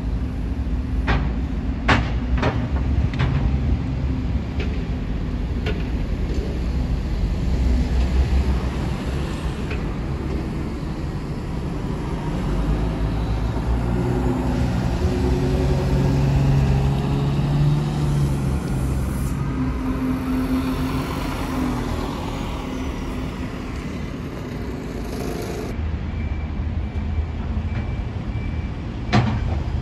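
Diesel single-deck buses manoeuvring through the bus station, their engines running with a steady low rumble, with a hiss of air from the brakes in the middle and a few sharp clicks.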